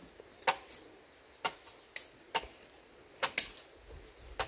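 A series of short, sharp knocks or taps at uneven intervals, about seven in all, with the last loud pair near the end.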